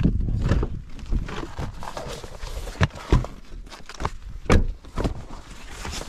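Footsteps and irregular knocks and thuds of someone moving about, with a sharp, heavier thud about four and a half seconds in.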